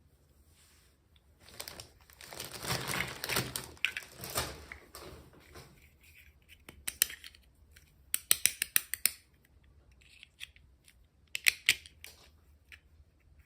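Packaging and small pieces being handled during an unboxing: a few seconds of rustling, then several quick runs of sharp clicks and taps, the fastest run of about half a dozen clicks in the middle.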